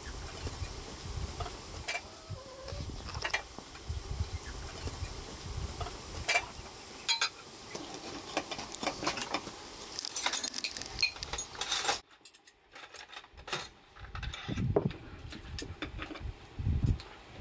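A honeybee buzzing at flowers at first, then scattered sharp clinks of a metal spoon against ceramic plates and bowls as food is served.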